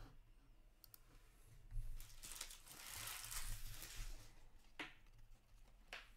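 A stack of trading cards being sorted by hand: cards sliding and rubbing against each other in a soft rustle that swells in the middle, with a few light clicks as cards are pulled apart.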